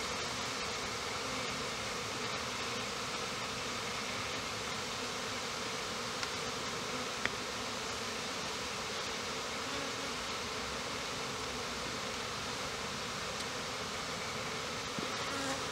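Honeybees buzzing steadily around an opened hive, with a single light tap about seven seconds in.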